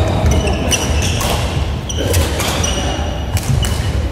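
Badminton rally: rackets striking the shuttlecock in sharp cracks, with shoes squeaking briefly and thudding on the wooden court floor as the players lunge and recover.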